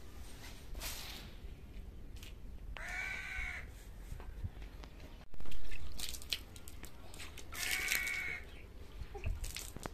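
An animal calls twice, each a drawn-out pitched call under a second long, about five seconds apart. A loud thump comes between them, with scattered small clicks throughout.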